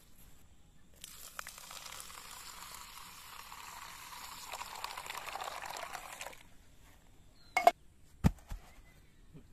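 Water poured in a steady stream into a steel bowl of mustard seeds to soak them, for about five seconds. Then two sharp knocks as a flat grinding stone slab is set down.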